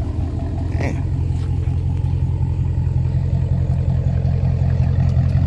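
Dodge muscle car's V8 engine idling steadily with a deep, even rumble.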